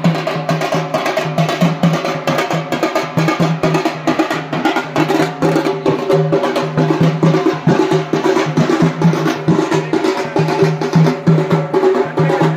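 Two slung hand drums beaten with sticks in a fast, dense, steady rhythm, with a steady low ring under the strokes.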